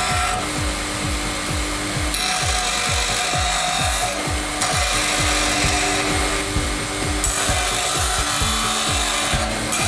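Bench grinder wheel grinding a steel knife blank pressed against it, a continuous rasping grind that grows stronger and weaker every couple of seconds. Background music with a steady beat plays under it.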